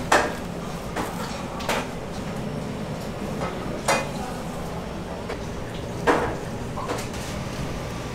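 Kitchen work clatter: about six sharp knocks and clinks of utensils and stainless-steel food containers at irregular spacing, the loudest right at the start and about six seconds in, over a steady hum of kitchen equipment.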